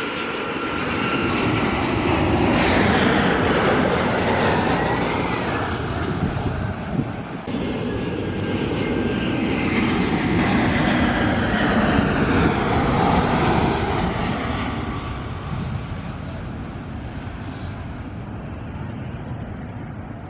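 Two jet airliners passing low overhead on final approach, one after the other: first a Boeing 737-800, then an Airbus A320. Each is a loud jet rumble and whine that swells, peaks and fades. A short dip comes between them, and falling whistle tones sound as the second goes over. The roar fades to a lower, steadier jet noise near the end as the A320 reaches the runway.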